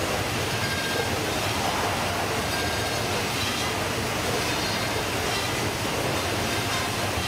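Baader fish-processing machine and its plastic belt conveyor running, a constant mechanical noise at a steady level.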